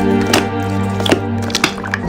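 Background music with steady held notes, over which slime is worked by hand, giving sharp, irregular clicks and crackles several times a second.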